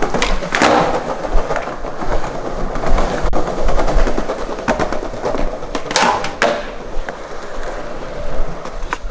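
Skateboard rolling on a smooth hard floor, the wheels making a steady rumble. Sharp clacks of the board come about half a second in and again around six seconds.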